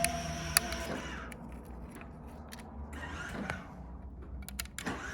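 A small motor whirring with a steady whine that stops about a second in, followed by scattered light clicks and knocks.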